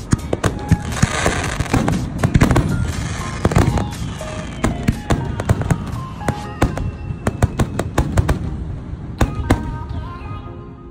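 Fireworks display: shells bursting one after another, many sharp bangs and crackles packed close together, thinning out near the end.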